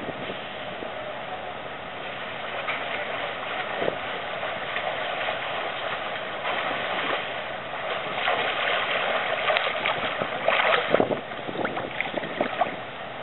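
Swimming-pool water splashing and lapping close to the microphone as a swimmer crosses the pool, growing louder and more uneven from about eight seconds in as the swimmer nears.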